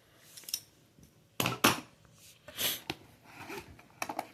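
Metal hand tools clinking and clacking as they are handled and set down, with a couple of sharp knocks about one and a half seconds in, a brief scrape, and another cluster of clicks near the end.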